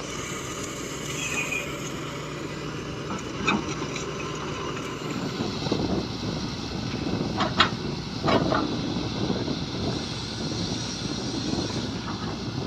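Shantui excavator's diesel engine running steadily at work, with a few short metallic clanks and squeals from the machine, the loudest about seven and a half seconds in.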